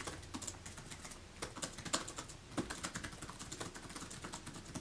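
Typing on a laptop keyboard: a faint, irregular run of light key clicks, several a second.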